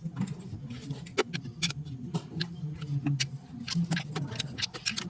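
Hand tools and parts clicking and tapping irregularly, a few sharp clicks a second, over a steady low hum.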